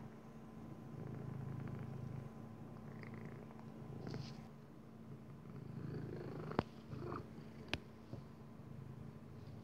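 Maine Coon cat purring, the low rumble swelling and fading in slow waves, with two sharp clicks about two thirds of the way through.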